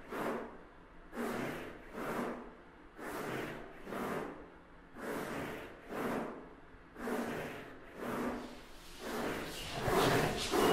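Rhythmic swishing noise, swelling and fading about once a second, growing denser and louder near the end.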